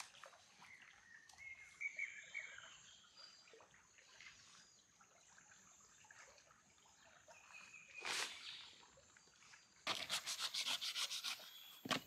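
Faint rustling and scraping with scattered clicks, a louder rasp about eight seconds in, then a fast run of regular rasping strokes in the last two seconds.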